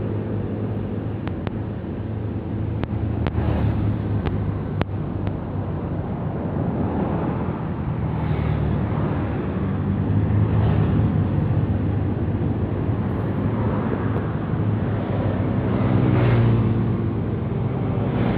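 Train running: a steady low rumble with a pitched engine drone, a few sharp clicks in the first few seconds, and slow swells in loudness.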